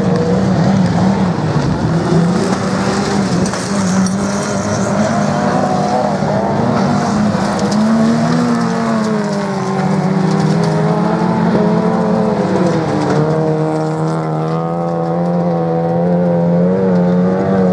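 Autocross race car engines running hard on a dirt track, their pitch rising and falling as the cars accelerate and lift off for the corners, with a pitch drop about two-thirds of the way through.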